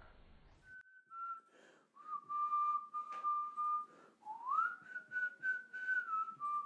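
A person whistling a slow tune: a few long held notes joined by short glides, with a rising slide a little past the middle.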